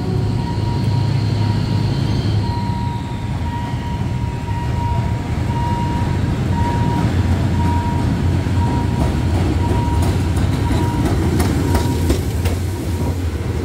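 SRT GE diesel-electric locomotive GEK 4025 approaching and passing close with a heavy, steady engine rumble. Its wheels clack over the rail joints and crossing in the last few seconds, while a level-crossing warning signal sounds on and off.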